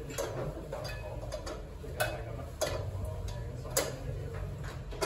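Utensils clicking and tapping against hard tableware or cookware, about eight irregular sharp taps, over a steady low hum.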